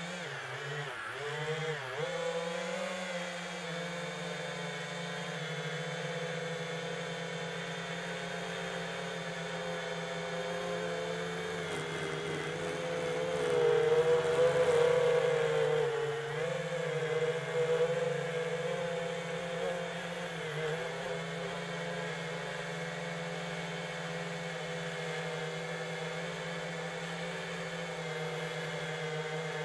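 FPV quadcopter's brushless motors and propellers whining, the pitch rising and falling with throttle. It grows louder from about thirteen seconds in during a surge of throttle, then settles back to a steady hum.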